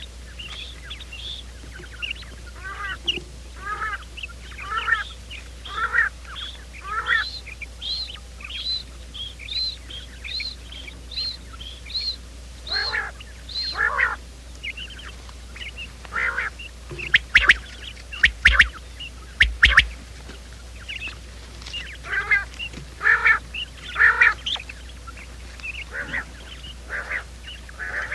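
Quail calling: a long run of short chirping calls, repeated about twice a second, with a few louder, sharper notes a little past the middle.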